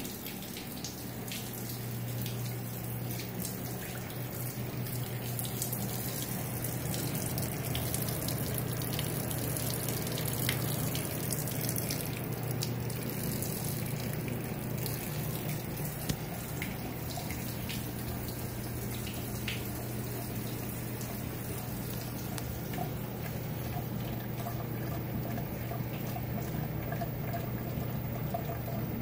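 Water running and splashing steadily in the plumbing of a sewage ejector tank that is overflowing onto the basement floor, over a steady low machine hum.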